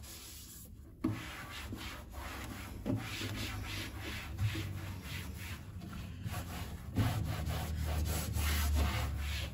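Scrubbing a bathroom cabinet surface by hand to work off stuck-on cream, in quick back-and-forth rubbing strokes. It starts about a second in and grows louder near the end.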